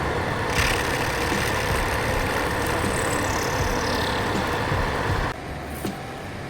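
Workshop machine running with a steady mechanical noise that drops away suddenly about five seconds in.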